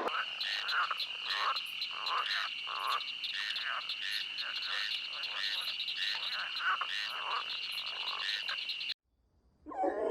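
Frogs croaking, about two to three croaks a second, over a steady high-pitched trill. The calling cuts off suddenly about nine seconds in.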